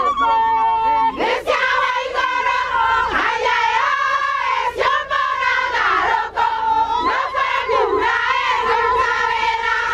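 A group of women singing together, many voices overlapping.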